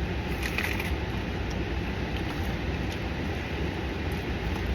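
Steady low hum inside a parked car's cabin, engine and air conditioning running, with a few faint clicks and rustles about half a second in.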